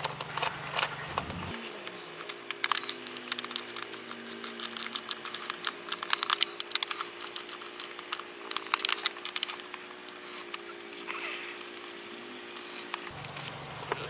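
Quick, irregular metal clicks and ticks of a socket and extension turned by hand, running the ignition-coil hold-down bolts down into the valve cover. A steady low hum sits behind them.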